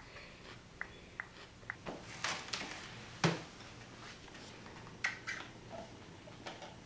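Handling of a plastic water bottle: scattered small clicks and rustles, one sharper knock a little over three seconds in, then clicks as the cap is worked open.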